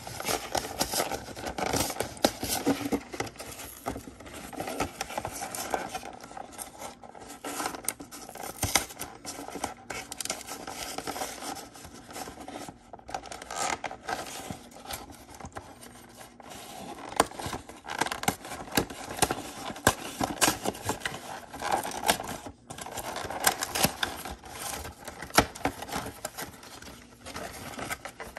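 A cardboard trading-card collection box being opened by hand: fingers picking at and tearing the seals on the end flap, and cardboard scraping and rustling as the flaps and sleeve are pulled apart, in an irregular run of scratches and small clicks.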